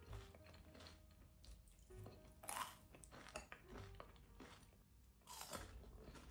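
Quiet, irregular crunching and chewing of crispy fried tofu and candied walnuts, with the strongest crunches about two and a half seconds in and again near the end.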